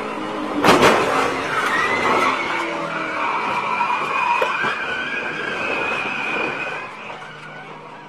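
A NASCAR stock car crashing, heard from onboard: a heavy impact about a second in, then tires squealing for several seconds as the car slides, dying away near the end.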